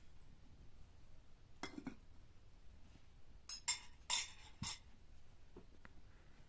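A few light clicks and clinks of small hard objects being handled: one about two seconds in, then a quick cluster of four a little past the middle.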